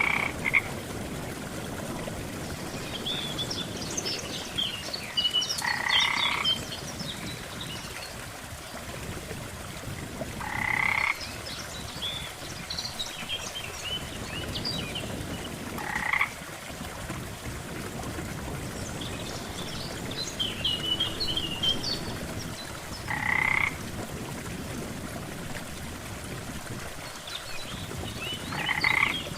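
Frogs croaking by a lake: a loud croak of about half a second every five to seven seconds, with clusters of higher chirping calls between them, over a steady rush of water.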